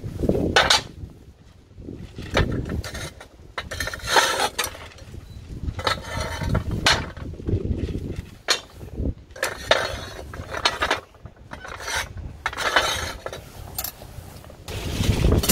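Irregular metal clanks and scrapes of steel ingot moulds and freshly cast copper bars being knocked out, shifted and set down on a steel plate, some strikes ringing briefly.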